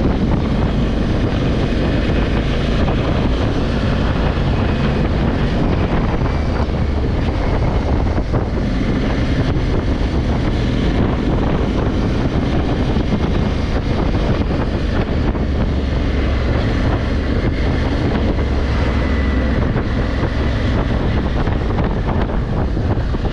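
Honda Africa Twin 1100's parallel-twin engine running steadily under way, with wind buffeting the microphone.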